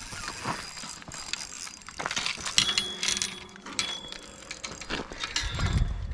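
Spinning reel being worked against a bent rod while a hooked fish pulls: a run of mechanical clicks from the reel.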